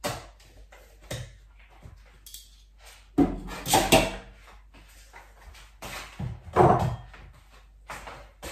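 Kitchen handling sounds: a spoon and a plastic margarine tub knocked and set down on a counter. The knocks come singly at first, with louder clattering about three to four seconds in and again around six to seven seconds in.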